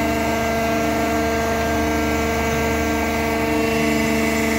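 Electric motor of a ship's cargo crane running steadily under load, a constant machine hum with several steady tones.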